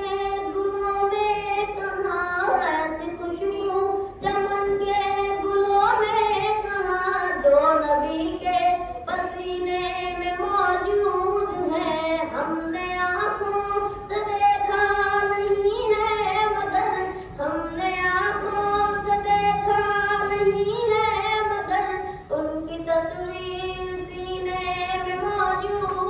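A boy singing a naat, a devotional poem in praise of the Prophet, solo and unaccompanied into a microphone, in long held notes with short breaks between lines.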